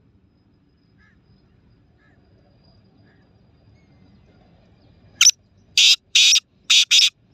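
Caged black francolin calling: about five seconds in, one short sharp note and then four loud, harsh notes in quick succession. Before that, only a faint low rumble and a few soft chirps.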